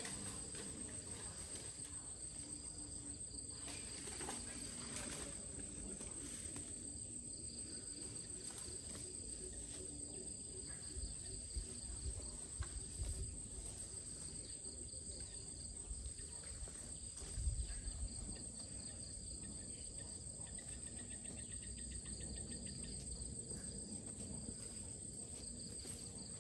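Steady high-pitched insect chorus with a finer pulsing trill beneath it, and a few soft low thuds in the middle, the loudest about two-thirds of the way through.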